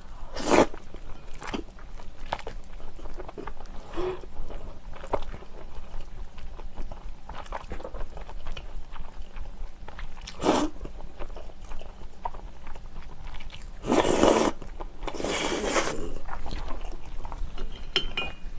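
Close-miked slurping and wet chewing of spicy cold noodles (naengmyeon). There are loud slurps about half a second in and about ten seconds in, and a longer loud stretch of slurping about fourteen to sixteen seconds in, with soft chewing clicks between them.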